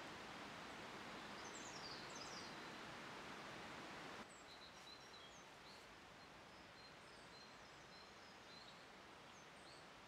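Faint outdoor ambience: a steady hiss with small birds chirping briefly and quietly now and then. The hiss drops a little about four seconds in.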